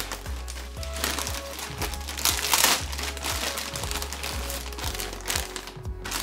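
Clear plastic packaging bag crinkling and rustling as it is pulled off a camera gimbal, loudest about two and a half seconds in, over soft background music.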